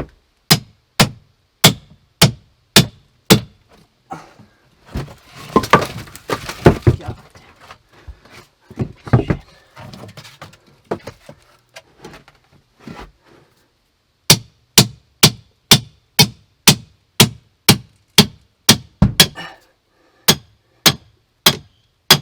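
Hammer blows struck at a steady pace, about two a second, in two runs, with a stretch of irregular knocking and scraping in between.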